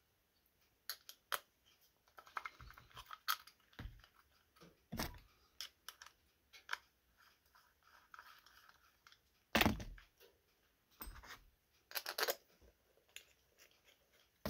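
Scattered small clicks, taps and knocks as the parts of a Ski-Doo vacuum-operated fuel pump are handled and fitted back together, with screws being started. The loudest knock comes about ten seconds in, and another follows near twelve seconds.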